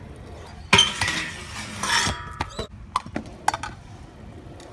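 Stunt scooter on a concrete skate-park floor: metal clattering about a second in and again near two seconds, then a string of short, light clinks and knocks.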